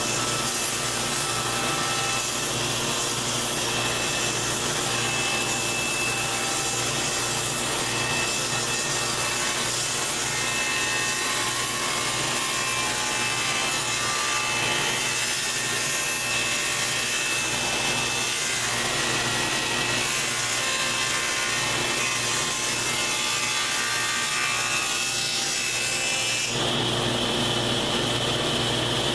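Table saw running under load as it rips along the edge of a curved plywood lamination fed slowly by hand, a steady cutting noise with wood rubbing. About 26 seconds in the cut ends and the sound changes as the blade runs free.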